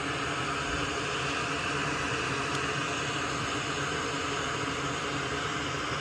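A steady, unchanging hiss of moving air, like a fan or blower running.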